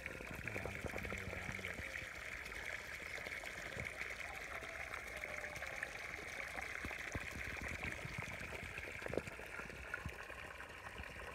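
Water from a garden hose pouring steadily into a muddy, flooded flower bed. A single sharp knock about nine seconds in.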